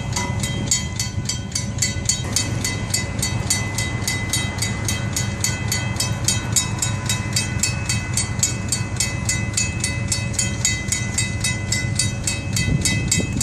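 Railroad crossing bell ringing with rapid, even strikes throughout, over a steady low rumble.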